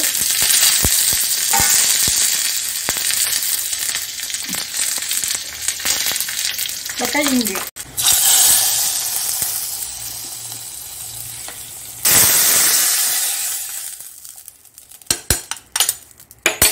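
Garlic, dried red chillies and curry leaves sizzling in hot oil in a small iron tempering ladle. About eight seconds in, the hot tempering meets the curry with a fresh burst of hissing that fades away. Near the end the metal ladle clinks a few times against the pot.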